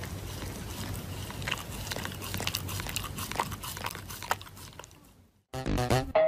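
A dog chewing, with scattered short crunching clicks over a steady low background hum. Music starts abruptly near the end.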